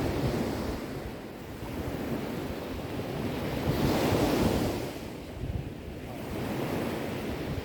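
Sea waves breaking and washing up the shore, the surf swelling and ebbing, with one large wave cresting about halfway through. Some wind rumble on the microphone.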